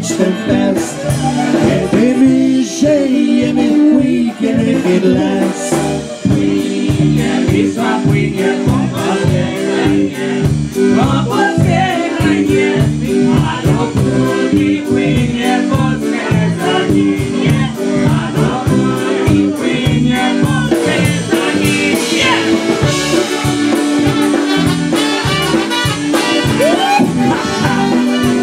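A live polka band plays an instrumental passage: concertina and piano accordion carry the tune over electric bass guitar and a drum kit keeping a steady, even beat.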